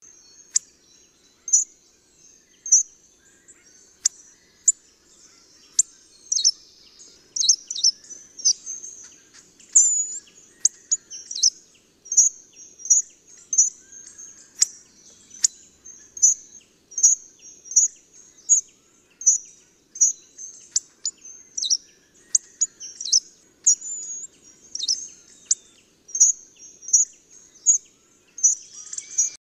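Hawfinch calling: a long series of short, sharp, high-pitched calls, about one or two a second, some sliding quickly downward in pitch.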